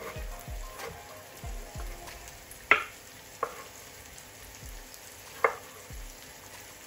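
Chef's knife chopping a tomato on a wooden chopping board: a run of irregular dull knocks, with a few sharper, louder clacks near the middle. Onions frying in a pan sizzle faintly underneath.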